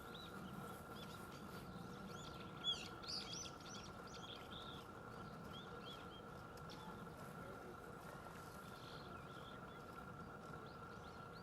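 Faint chirping of small birds: many short, high notes that rise and fall, busiest about two to four seconds in, over a steady faint hum.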